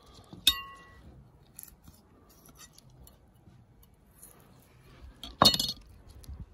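A steel kitchen knife clinking while octopus is trimmed on a cutting board: one sharp clink with a brief ring about half a second in, and a louder cluster of quick knocks near the end.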